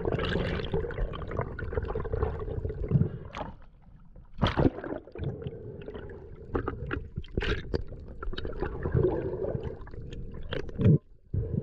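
Water gurgling and sloshing around an underwater camera, with scattered sharp clicks and knocks and a steady hum underneath. There is a brief drop-out about eleven seconds in.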